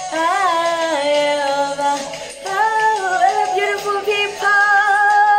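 A woman singing, holding several long notes that step up and down.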